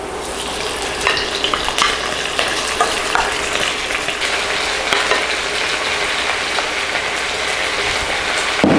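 Raw pork pieces sizzling in hot oil and sautéed garlic in a steel wok as they are scraped in from a bowl with a wooden spoon. The sizzle builds over the first second and holds steady, with a few sharp knocks as pieces land and the spoon hits the pan.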